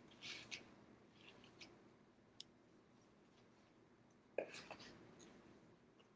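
Faint scratching and rustling of a paintbrush stroking paint across a paper plate, with a light knock about four seconds in as the plate is set down on the table.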